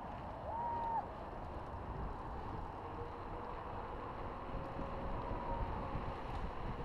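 Wind buffeting a handlebar-mounted action camera and bicycle tyres rolling on asphalt on a downhill ride, a steady low rumble. A short, clear high tone sounds once about half a second in.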